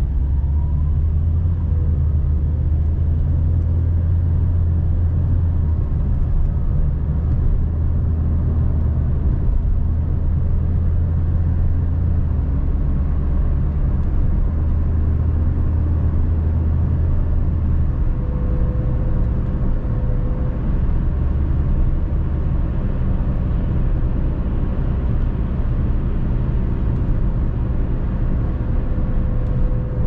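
Car driving at a steady speed: a continuous low rumble of tyres and engine, easing slightly about two-thirds of the way through.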